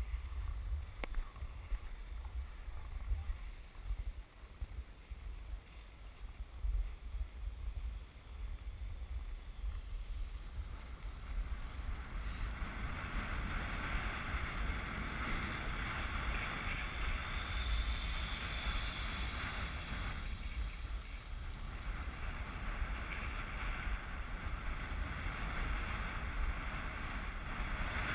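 Wind buffeting the microphone as a skier glides downhill, a gusty low rumble. From about ten seconds in, a steady hiss of skis sliding on snow grows louder and stays as the skier picks up speed.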